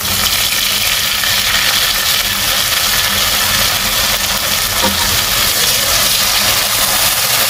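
Sliced onions and green chilli sizzling in hot oil in a kadai with a steady hiss, while ginger-garlic paste is added and stirred through with a spatula. A steady low hum runs underneath.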